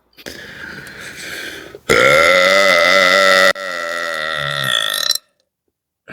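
A long, deliberate belch, brought up after drinking carbonated Red Bull: a rough, airy start of about a second and a half, then a loud pitched burp that drops in level halfway through and runs on for about three seconds before cutting off.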